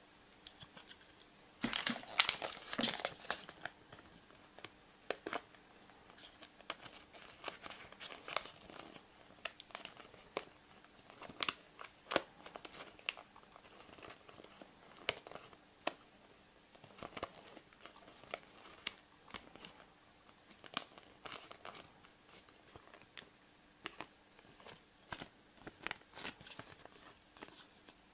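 Crinkling and tearing of a surprise egg's wrapper being opened: a dense burst of crackling about two seconds in, then scattered crinkles and clicks.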